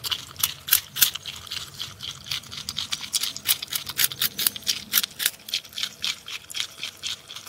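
Porcupine gnawing on a piece of sweet potato: an irregular run of crisp crunching clicks, several a second.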